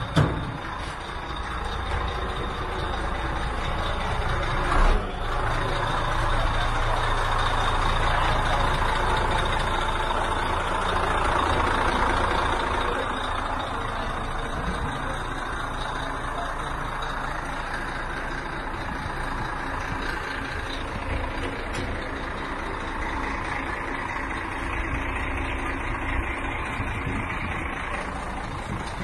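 Heavy diesel truck engine running steadily at idle, a low even rumble, with a single knock about five seconds in.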